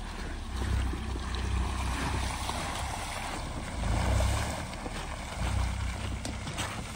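Tyres of a Tata Punch rolling through wet slush and mud as the car drives slowly away, a steady watery hiss. Wind gusts on the microphone add an uneven low rumble.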